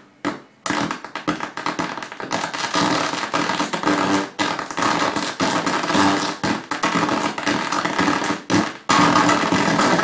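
Programme audio from a DVD player coming out of an ATEM switcher's analogue audio output through Yamaha MSP5 studio monitors, heavily saturated and crackling with dense clicks. The distortion is the sign of a faulty, overdriven analogue output.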